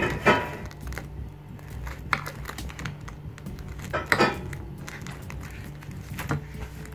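Knife and fork clinking and scraping on a plate as a fried chicken Kiev is cut into, a few scattered strokes with a louder one about four seconds in.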